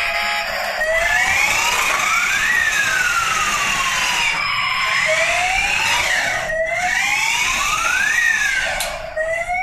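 Electronic fire-engine siren sound effect from a toy RC fire truck's built-in speaker: a wailing tone that slowly rises and falls, each sweep about two seconds, over a steady hiss.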